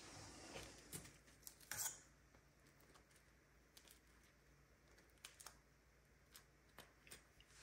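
Faint scrapes and light clicks of a fork spreading soft spread onto pieces of dry-toasted bread over a steel bowl, with the loudest scrape about two seconds in and a few small ticks near the end.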